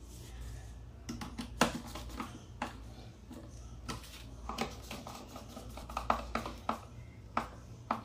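Irregular small clicks and knocks of wires and a screwdriver being handled at the contactor terminals, over a low steady hum.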